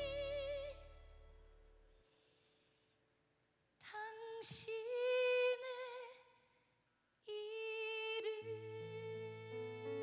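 A woman singing long held notes with a wide vibrato in slow phrases, unaccompanied at first, with pauses of near silence between them; a soft sustained keyboard accompaniment comes in under her voice near the end.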